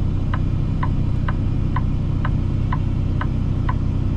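Semi truck's flasher ticking evenly, about two clicks a second, over the steady hum of its running diesel engine, heard from inside the cab.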